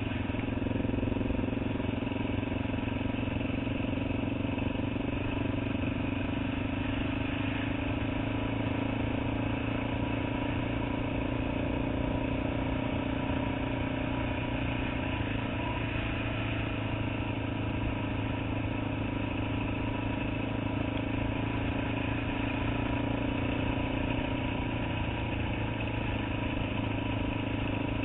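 Dirt bike engine running steadily while being ridden at a constant pace, heard on board from the rider's helmet.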